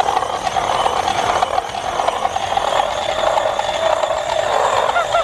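An HBX 16889 1/16-scale brushless 4WD RC truck spinning donuts on a textured steel deck plate. Its tyres scrub and chatter against the plate in a rapid, continuous rattle, with the electric motor running under it.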